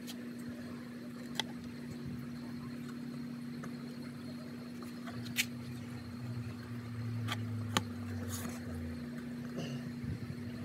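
Steady low machine hum holding one even tone, with a few faint clicks scattered through it.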